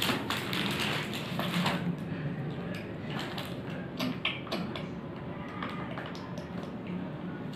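Paper rustling as books and notebooks are shuffled on a table, settling after about two seconds into scattered light taps and scratches of a pencil writing on paper, over a low steady hum.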